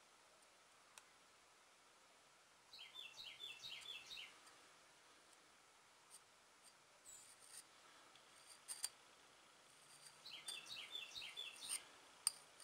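Two short trills of rapid high chirps from a small bird, a few seconds apart, over near-silent room tone, with a few light clicks.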